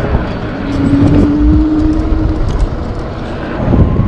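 Rumbling wind and road noise on the microphone while riding, with a single steady tone held for about a second and a half starting just under a second in.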